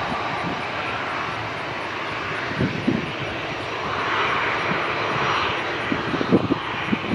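Distant aircraft engine noise, a steady rushing drone that swells about four seconds in and eases again, with a few brief low thumps about two and a half seconds in and near the end.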